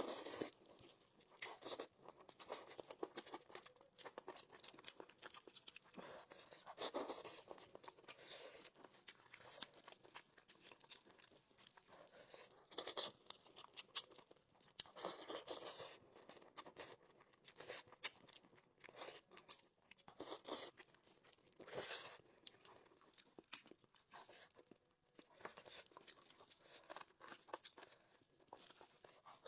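Close-miked eating of chicken: irregular crunching, tearing and chewing, with sharp crackly bites scattered throughout.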